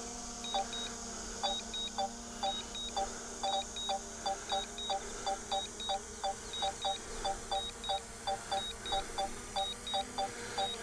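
A DJI drone controller beeping in quick double beeps, about three a second, as its return-to-home alert. Under it is the steady hum of a DJI Mini 4 Pro's propellers as the drone comes down to land.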